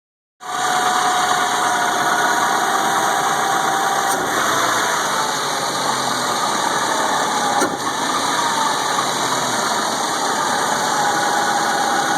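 Suzuki Grand Vitara's 2.0 J20A engine running with a steady hissing, blowing noise and faint whistling tones that slide in pitch. This is the 'soplido' the owner is trying to show, a sound whose cause he cannot identify.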